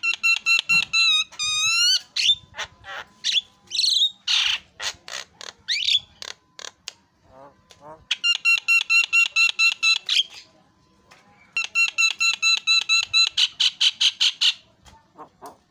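Javan myna singing: a few rising whistled notes at the start, scattered harsh calls, then two rapid runs of repeated ringing notes, each about two seconds long, in the second half.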